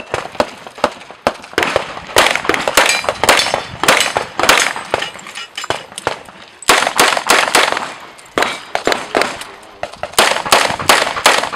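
A handgun fired in fast strings of shots during a practical shooting stage. The shots come in quick clusters, each followed by a short ringing echo, with brief pauses between the strings.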